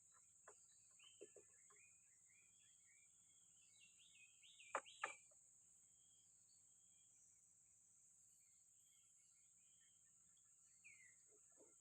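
Faint outdoor ambience: a steady high-pitched insect drone with scattered bird chirps. A few sharp clicks break through, the loudest a pair about five seconds in.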